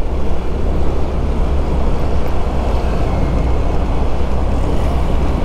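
Steady wind buffeting on an action camera's microphone while riding a motorcycle in traffic, with engine and road noise underneath.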